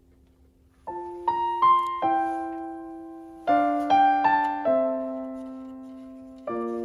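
Background music: a slow piano melody, with struck notes and chords that ring and fade, starting about a second in.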